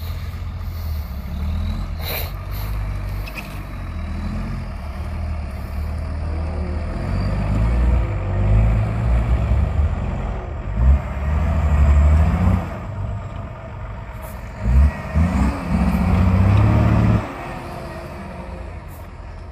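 Off-road 4x4 vehicle engine working over rough ground, revving up and down in short surges, then easing off near the end.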